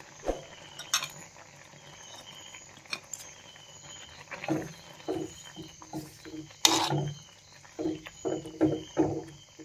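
Steel spoon stirring thick green chilli pickle in a clay pot, knocking and scraping against the pot in a quick run of strokes from about halfway through, with a few light clicks before that. The stirring mixes in freshly added fenugreek powder.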